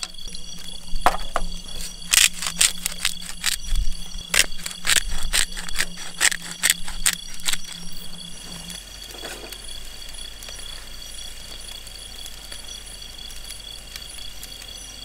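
A run of sharp clicks and taps, several a second, that stops about halfway through, over a steady high chirring of night insects.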